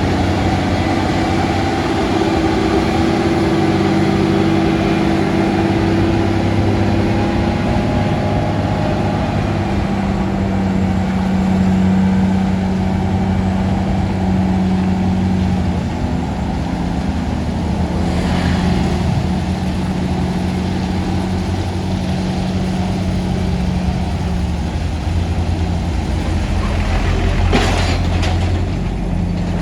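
Heavy truck's diesel engine running steadily with a low, even drone. A short burst of noise comes near the end.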